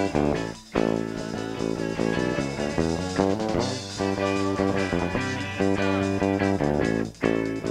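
Amateur rock band playing live, poorly recorded: electric guitar chords over bass and drum kit in an instrumental passage, with two brief breaks, about half a second in and near the end.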